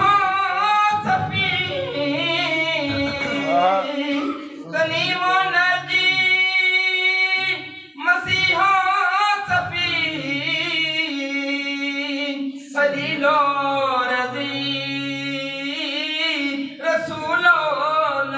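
A man singing an Urdu devotional poem (naat) unaccompanied, in long, ornamented held notes with short breaks between phrases, over a steady lower note held underneath.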